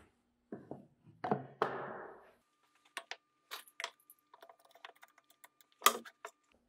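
A wooden workpiece being handled, set and clamped against a plywood tenon jig on a table saw: scattered knocks and thuds, a short scrape of wood sliding about one and a half seconds in, a run of small clicks, and a sharp knock near the end.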